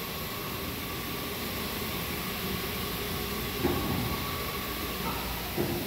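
Richards-Wilcox 3-ton overhead bridge crane travelling on its runway: a steady rumble with a thin motor whine, and a clunk a little past halfway. The whine stops near the end, followed by another clunk.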